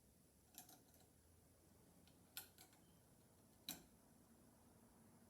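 Near silence broken by a few faint, sharp clicks, about four over five seconds, from hand tools being handled on the switch wiring.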